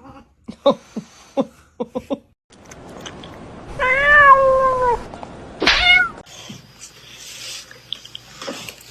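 A domestic cat meowing. Several short clipped calls come first, then one long drawn-out meow about four seconds in that rises a little and then falls, and a shorter sharp meow about a second and a half later.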